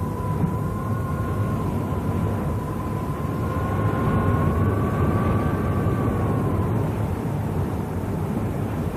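Sound effect of a raging water torrent: a steady, dense low roar. A sustained high tone wavers slightly over it and fades out about seven seconds in.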